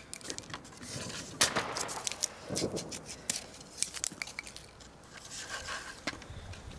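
Irregular scraping, rustling and sharp clicks of firework rockets being handled in a launch stand, with no steady sound between them.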